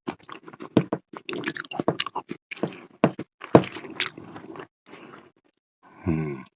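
Close-miked chewing of a cheese-covered fruit salad: rapid wet smacking and clicking of mouth and lips, thinning out after about five seconds, then a short hummed "mm" near the end.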